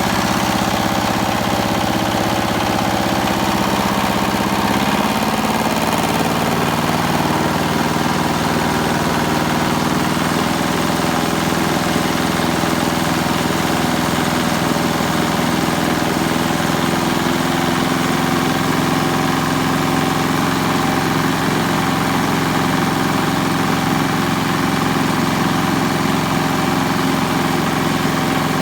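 Diesel generator engine running steadily after a cold start. Its note shifts about five seconds in, then holds even.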